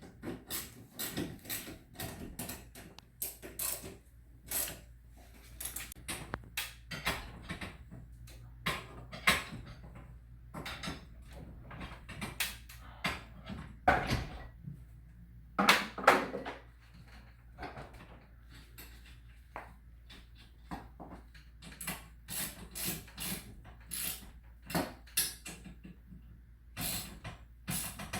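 Irregular clanks, clicks and knocks of hand tools on garage door spring hardware, with a couple of louder knocks midway.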